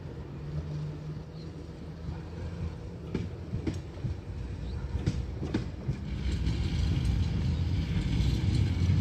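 A 71-619KT tram running along its track, a low rumble that grows louder in the second half as it comes closer. A few sharp clicks stand out around the middle.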